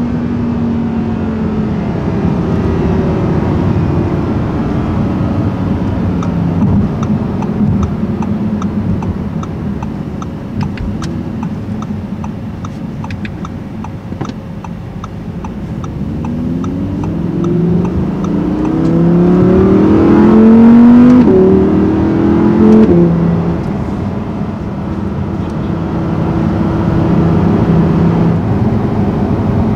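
2018 Audi R8 V10 RWS's 5.2-litre V10 heard from inside the cabin. Its note falls as the car eases off, runs lower while cruising, then climbs sharply under hard acceleration about two-thirds of the way through. Two quick upshifts drop the pitch before it settles again.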